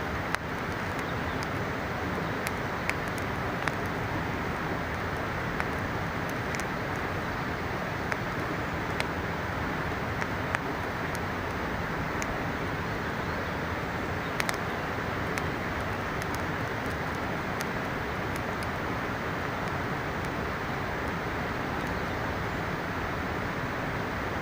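Steady rush of a mountain river, with scattered sharp crackles and pops from a wood campfire.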